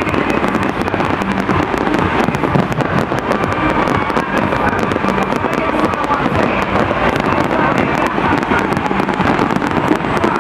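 Fireworks display at full intensity: a dense, unbroken barrage of bangs and crackling from many shells bursting at once.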